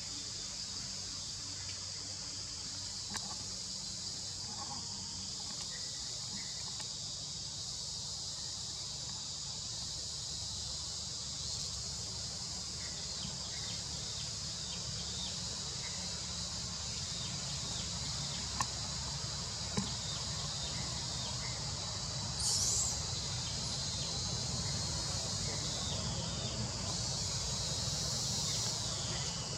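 Steady, high-pitched drone of an insect chorus in tropical forest, with a low rumble beneath it. A couple of sharp clicks come a little past the middle, and a brief higher call about three-quarters of the way in.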